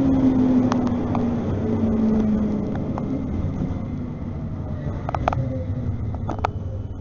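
CAF Urbos 3 tram running, heard on board: a steady rumble of the wheels on the rails, with a faint motor whine that falls in pitch as the sound eases off, suggesting the tram is slowing. A few sharp clicks come in the second half.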